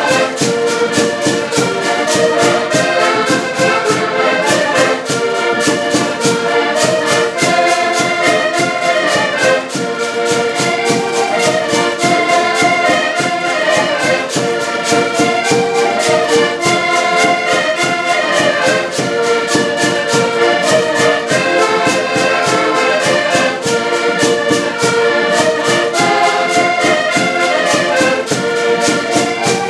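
Several accordions playing a lively folk tune together in held, reedy chords, over a fast, even percussive beat.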